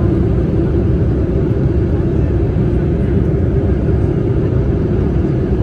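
Boeing 787-8 cabin noise during the climb after takeoff: the jet engines and rushing air heard from a window seat behind the wing, a steady, deep rush with no change.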